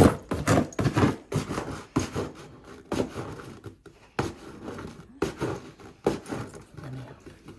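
A large dog scratching and tearing at a cardboard box: a string of irregular scrapes, scratches and rustles.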